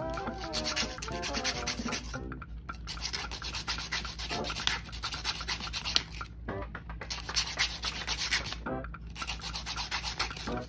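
Sandpaper, coarse P150 grit, rubbed by hand against a small plastic model part in quick back-and-forth strokes. The strokes come in several spells of one to three seconds with brief pauses between them.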